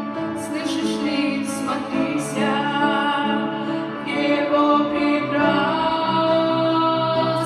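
Two women singing a Christian song with instrumental accompaniment, in long held notes over changing chords.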